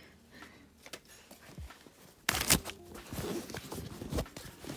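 Fabric rustling and rubbing as a plush toy is pushed into a canvas backpack, with handling noise close to the microphone; it starts suddenly about two seconds in after a quiet stretch.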